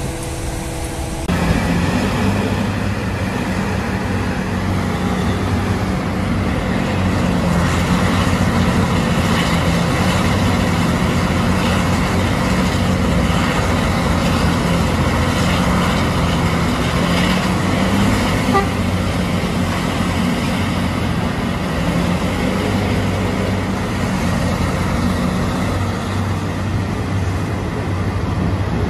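Large diesel heavy mining machine's engine running steadily under load. In the first second a short steady horn-like tone sounds and cuts off.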